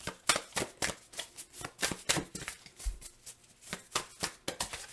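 Tarot cards being shuffled by hand: a run of irregular, quick card snaps and taps.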